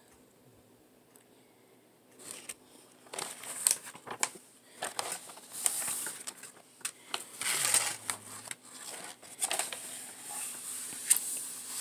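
Plastic-covered diamond painting canvas crinkling and rustling in irregular bursts as it is unrolled and flattened by hand, starting about two seconds in after near silence.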